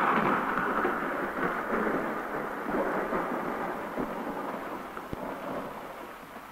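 Thunder-like rumbling sound effect: a dense rushing noise that slowly fades away, with a few faint knocks near the end.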